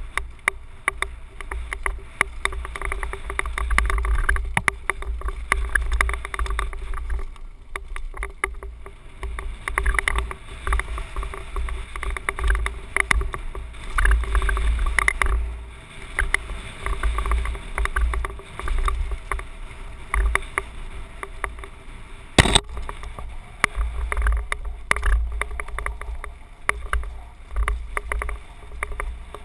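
Wind buffeting and rumbling on a helmet camera as a mountain bike descends a rocky dirt trail at speed, with constant rattling and clicking from the bike and its tyres over loose stones. One sharp knock stands out about twenty-two seconds in.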